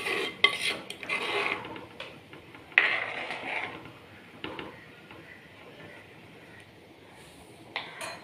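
Steel ladle clinking and scraping against a pot while stirring a simmering coconut-milk fish curry. A run of clatters and scrapes comes in the first few seconds, the loudest about half a second in and again near three seconds, then a lone clink near the end.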